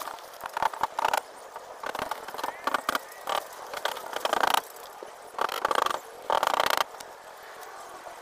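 Rustling, crinkling handling noises from repotting work, coming in irregular bursts for several seconds, the loudest near the middle.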